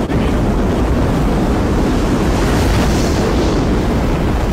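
Rocket-launch sound effect for a jet blasting off: a loud, steady rushing noise with no distinct tones, its hiss brightening a little about halfway through.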